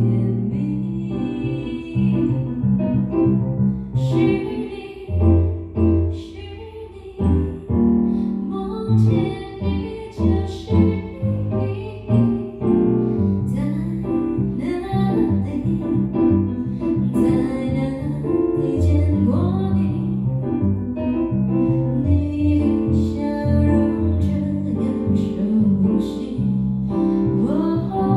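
A woman sings a slow song into a microphone, accompanied on a Nord Electro 6D stage keyboard.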